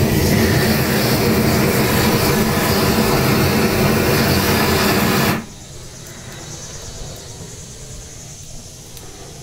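Propane weed-burner torch firing: a loud, steady rush with a low rumble, shut off suddenly about five seconds in, leaving a faint hiss.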